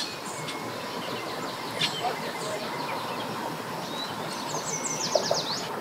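Steady outdoor background noise with a bird chirping now and then, and a quick run of high chirping notes near the end.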